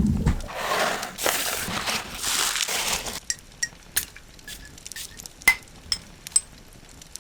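Jewelry packing sounds: about three seconds of packaging material rustling and crinkling, then a run of light sharp clicks and small metallic clinks, a couple of them louder.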